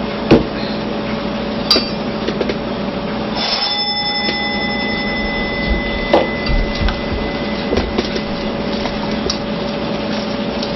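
A utensil knocking and clicking against a mixing bowl while a filling is stirred together, over a steady low hum. About three and a half seconds in, a single bell-like ring sounds and fades out over a few seconds.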